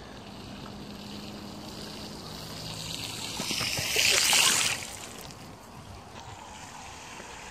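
Bicycle tyres hissing and spraying through a flooded path's puddle. The sound builds and peaks loudly as the wheel passes close by about four seconds in, then falls away.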